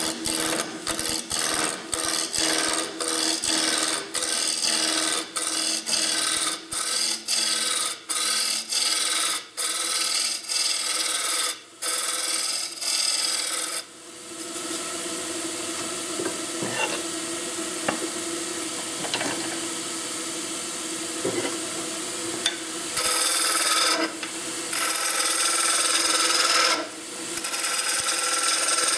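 Turning tool cutting a spinning elm blank on a wood lathe, in short strokes about twice a second for the first half. The middle stretch is a steadier, quieter cut, and heavier cutting returns for the last few seconds. A steady hum from the lathe runs underneath.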